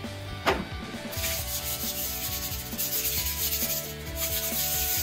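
Aerosol brake and parts cleaner hissing onto a bare clutch flywheel in two long sprays, with rubbing as the face is wiped by hand. A single sharp knock comes about half a second in.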